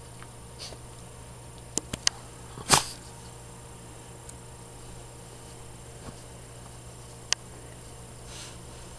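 Small dog stirring as she wakes from a nap, with a few faint clicks and one short, loud breathy burst from the dog about three seconds in, over a steady low hum.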